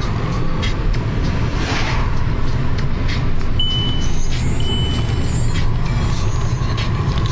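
Car engine and road noise heard from inside the cabin while driving, a steady low drone. Two short high beeps come about halfway through.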